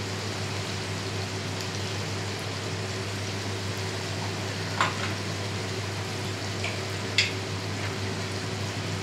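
Diced chicken frying in oil in a wok, with a steady sizzle. Two short clicks come about halfway through and again a couple of seconds later.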